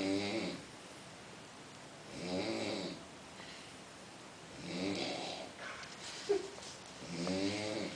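A sleeping man snoring in a regular rhythm, one rattling snore about every two and a half seconds. There is a brief sharp sound about six seconds in.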